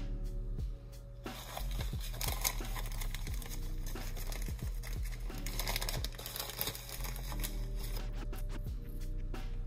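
Background music with steady low tones, over the crinkling of a plastic bag of cumin seeds being handled and opened, loudest in the middle stretch.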